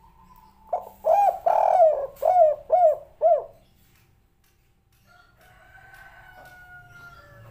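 Spotted dove cooing its 'kuk 3' song: a quick run of about six loud, arched coo notes over about three seconds.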